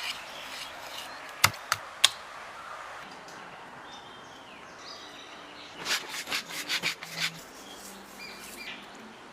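Scattered sharp clicks and knocks, three about a second and a half in and a quick cluster of them past the middle, with faint bird chirps in the background.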